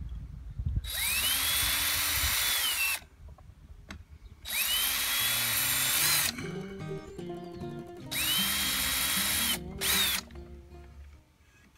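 Cordless drill running in three bursts of about two seconds each, with a short fourth burst near the end. Each burst spins up with a rising whine and then holds steady as it drills a pilot hole in the wooden gate.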